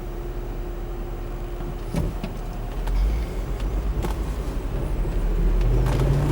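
Mercedes-Benz M-Class SUV driving off-road: a steady low engine rumble, with sharp knocks and rattles starting about two seconds in and the engine growing louder near the end.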